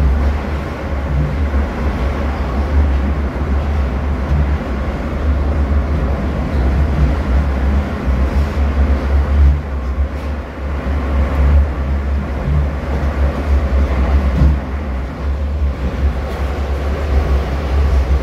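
Moscow metro train running through a tunnel, heard from inside the passenger car: a steady rumble of wheels and running gear over a deep drone.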